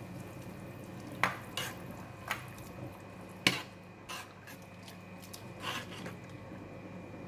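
Metal utensil stirring flat rice noodles in a stainless steel saucepan of boiling water. It knocks against the pot about six times, loudest about three and a half seconds in, over a steady low hiss of the water at the boil.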